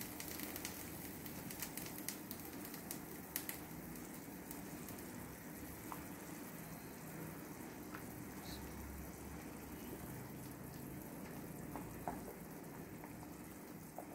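Sugar syrup boiling rapidly around rasgullas in a pan: a steady bubbling hiss. A few faint clicks come in the first few seconds as the balls are turned with a wooden stick.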